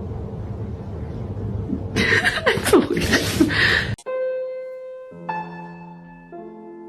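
A low steady rumble, then about two seconds in a loud noisy burst with falling voice-like glides that cuts off abruptly about four seconds in. Gentle keyboard music of held notes follows.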